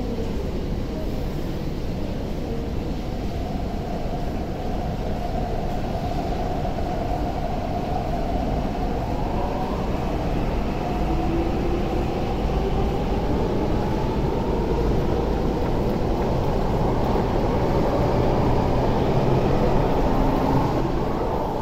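MTR Tuen Ma Line C-train (metro EMU) pulling out of an underground station platform. Its traction motors give a whine that rises steadily in pitch as it accelerates, over the rumble of wheels on rail, and it grows louder toward the end.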